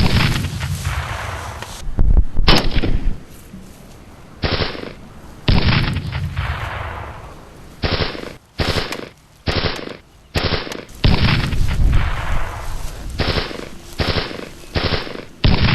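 Gunfire exchanged with a sniper: about a dozen single gunshots at uneven spacing, some under a second apart, each followed by a long echoing decay.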